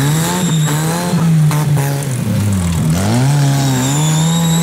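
A small racing tractor's engine is held at high revs, drops off sharply about two-thirds of the way through, then climbs straight back up and holds. A thin high whine rises and falls above it near the end.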